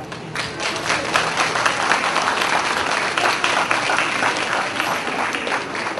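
Crowd applauding: many people clapping steadily together.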